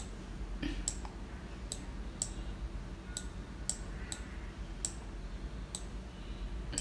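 Computer mouse clicking about nine times at uneven intervals, roughly one or two clicks a second, over a faint steady low hum.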